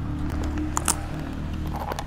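A toddler chewing Doritos tortilla chips close to a clip-on microphone: a few sharp crunches about a second in and again near the end, over a low steady hum.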